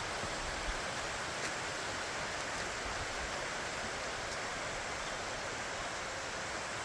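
Steady, even rush of water falling at a waterfall.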